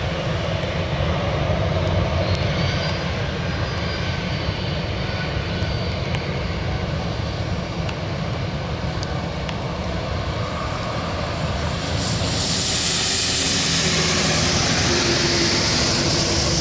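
Airbus A320's IAE V2500 turbofan engines at takeoff thrust, a steady deep rumble as the airliner climbs away. About twelve seconds in, a broad hiss rises over the rumble.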